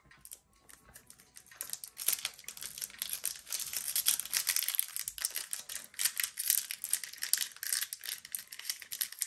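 Foil wrapper of a Pokémon trading card booster pack crinkling as it is worked open by hand, a dense run of fine crackles starting about a second and a half in.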